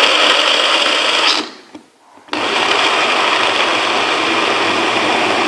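Small press-down blender running in two short pulses, chopping frozen aronia berries with a splash of vodka in its cup. The first pulse stops about a second and a half in; the second starts about a second later and carries on.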